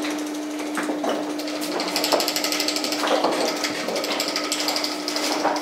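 Paternoster lift's drive machinery running: the electric motor and Flohr gear drive give a steady hum under a fast, even mechanical ticking, with a few louder knocks.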